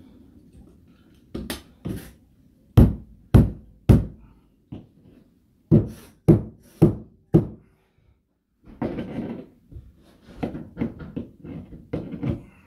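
Sharp knocks and thuds from carpet-installing work on a stair: about ten separate strikes in the first eight seconds. Then a short rustle and a quicker run of lighter knocks near the end.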